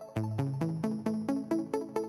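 Background electronic music: a synthesizer arpeggio of short plucked notes, about four or five a second, stepping up in pitch.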